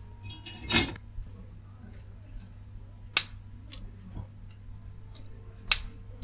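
Hand tools being handled on a workbench: three sharp clicks about two and a half seconds apart, the last two the loudest, over a faint steady hum.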